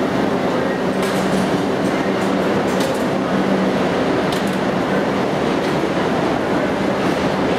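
Subway train in a station: a steady rumble with a low hum running underneath, and a few light clicks.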